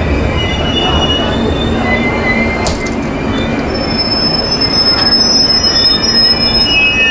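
A train rumbling along the rails, its steel wheels squealing against them in several high-pitched squeals that come and go. Two sharp clicks stand out in the middle.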